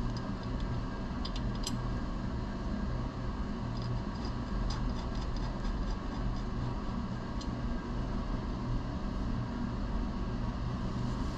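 Steady low mechanical hum in a workshop, with a few faint, light metallic clicks from bolts and washers being fitted to a track bar bracket.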